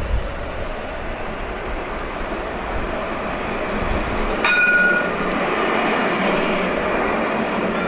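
Alstom Citadis light-rail tram approaching and passing close by on street track, its running noise growing louder as it nears. A short ringing tone sounds about four and a half seconds in.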